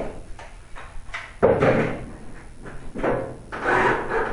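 Cordless drill driving the tanning bed's end-cap screws back in, running in short bursts, one about a second and a half in and another near the end.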